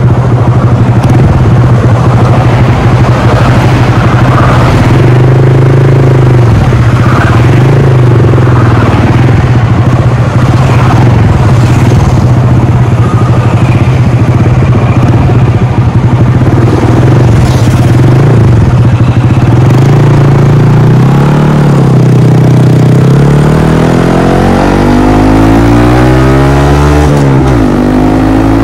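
Honda Monkey 125's single-cylinder four-stroke engine running at a steady cruise, with wind rushing over the microphone. In the last few seconds it accelerates, the engine note climbing, dipping briefly just before the end and climbing again.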